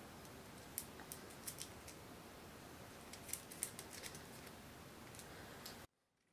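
Light clicking of small metal nuts and screws being fitted by hand on a fiberglass quadcopter frame, a dozen or so scattered clicks over a faint steady hiss. The sound drops abruptly to near silence just before the end.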